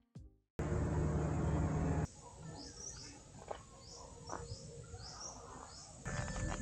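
Birds chirping: a run of short, high chirps, each falling in pitch, repeating every half second to a second over faint background noise. Before them, a stretch of loud low rumbling noise cuts off suddenly about two seconds in.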